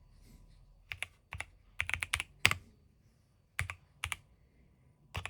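Keys pressed one at a time on a Keychron Q6 Max gasket-mount mechanical keyboard: sharp separate clacks, some in quick pairs or small runs, with gaps of up to a second between them.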